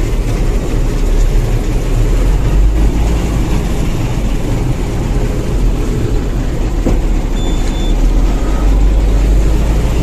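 Combine harvester running steadily while harvesting corn, heard from inside the cab: a loud, even, heavy low drone of engine and machinery.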